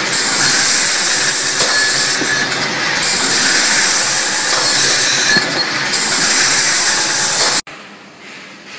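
Automatic pipe-cutting machine running through its cycle: a loud, steady hiss and machine noise whose highest part drops out briefly about every three seconds. It cuts off abruptly near the end, leaving only a quiet workshop background.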